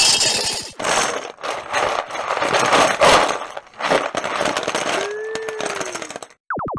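Sound effects of a mass of plastic poker chips pouring and clattering together, then a shower of small plastic rings clattering down in waves. The clatter thins to scattered clicks near the end, with a brief gliding tone about five seconds in and a short falling tone just before the end.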